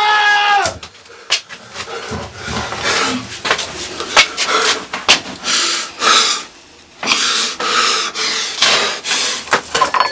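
A man's loud cry that cuts off about half a second in, then heavy, ragged breathing in and out, in distress.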